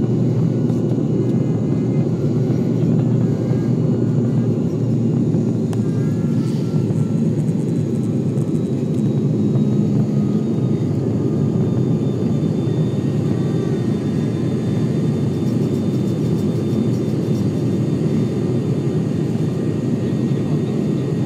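Steady drone of an ATR 72-500's twin Pratt & Whitney Canada PW127 turboprop engines and propellers.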